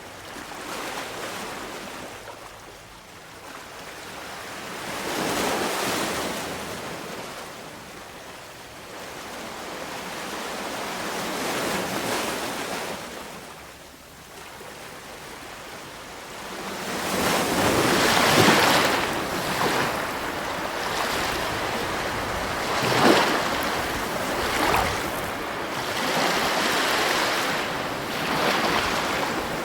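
Sea waves breaking and washing up the shore, a rushing hiss that swells and recedes every few seconds, with a run of stronger breakers in the second half.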